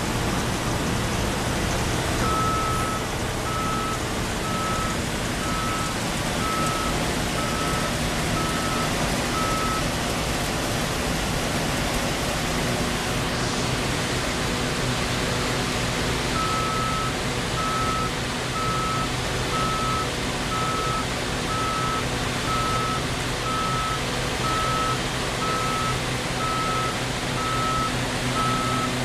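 Heavy diesel road machinery, the CAT cold-in-place recycling milling machine and the paver, running steadily. A reversing alarm beeps about one and a half times a second from a couple of seconds in to about ten seconds in, and again from about sixteen seconds in.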